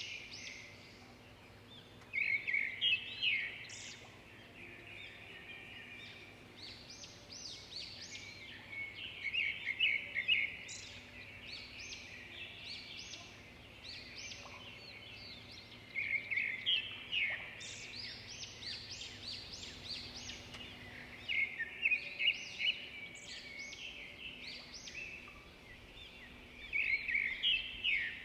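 Songbirds singing: about five loud bouts of rapid, chattering song a second or two long, with quieter chirps between them and a faint steady low hum underneath.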